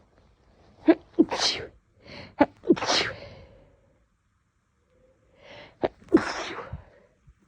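A woman sneezing three times in a fit, each sneeze a sudden burst led by a quick sharp breath in, the third coming after a pause of about two seconds. The fit comes from an itchy, irritated nose.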